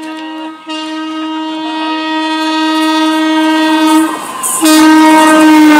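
Air horn of an approaching WAP-4 electric locomotive, sounded in long steady blasts with a brief break near the start and another around four seconds in. It grows louder as the train closes in.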